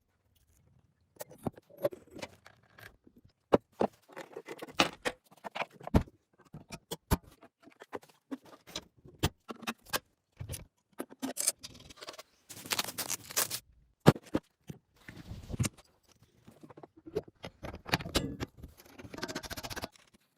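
Hand work on metal parts: irregular clicks, light knocks and short scraping and rattling sounds, with a few sharper knocks.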